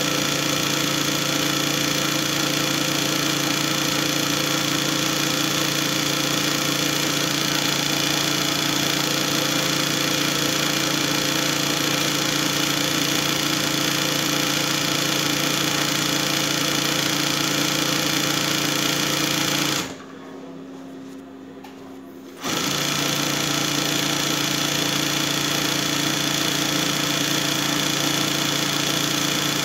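Bernina 217N-08 industrial hemstitch (picot) sewing machine stitching steadily at speed. About two-thirds of the way through it stops stitching for about two seconds, leaving a fainter hum, then starts again.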